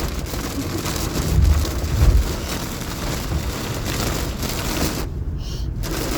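Rain and hail pelting the roof and windshield of a car, heard from inside the cabin: a dense hiss peppered with sharp ticks, with a couple of low thumps about one and a half and two seconds in. The hiss drops out for about a second near the end.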